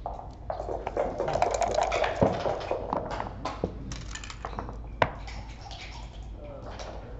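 Backgammon dice rattling in a dice cup and thrown onto the board's felt, then single clicks as checkers are set down on the board.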